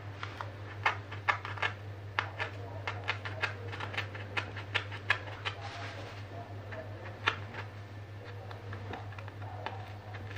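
Box-cutter blade cutting around a circle in cardboard, a quick irregular run of sharp clicks and crunches as the blade catches and tears through, thinning out in the second half. A steady low hum sits underneath.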